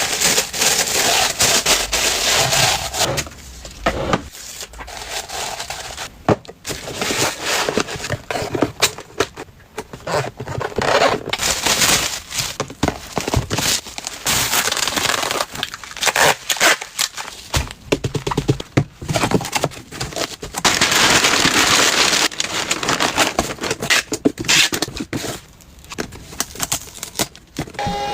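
Packaging being handled and packed: crinkling and rustling in irregular bursts, with scrapes and sharp clicks.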